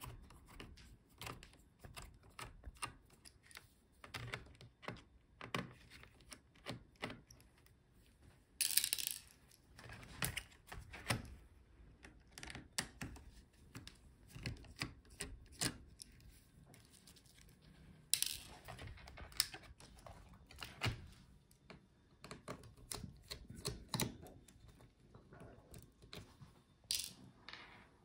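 Small scattered clicks and taps of a screwdriver on screws and of plastic laptop parts and cable connectors being handled while the motherboard is freed. There are a few brief louder rasps, about nine seconds in and again about eighteen seconds in.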